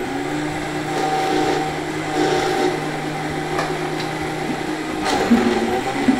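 High-speed countertop blender running at full speed, blending a jar of almond milk, spinach, tomatoes, zucchini and onion into a green soup. About five seconds in the steady motor whine gives way to a rougher churning as the tamper is pushed down into the jar.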